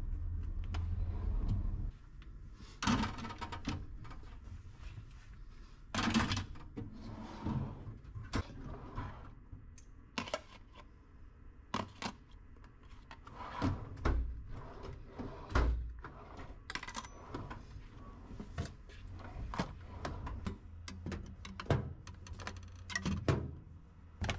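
Metal hand tools such as wrenches, screwdrivers and pliers clinking and clattering as they are sorted into tool chest drawers, with drawers thudding open and shut. The knocks and clinks come irregularly, a few louder thuds among them.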